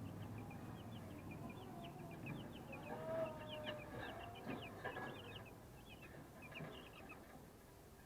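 A brood of 12-day-old broiler chicks peeping, many short high cheeps overlapping, busiest around the middle.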